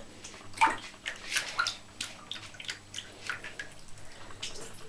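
Water in a bathtub splashing and dripping as a cat moves about in it: a string of small irregular splashes and drips, the loudest about half a second in.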